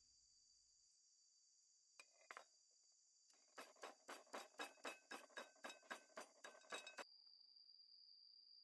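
Stone pestle pounding red chilies and salt in a stone mortar: a regular run of light knocks, about four a second for some three seconds, beginning about halfway through. Two faint clicks come shortly before the pounding starts.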